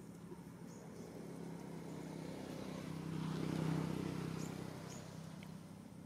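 A vehicle engine passing by: a steady low hum that grows louder to a peak about three and a half seconds in, then fades.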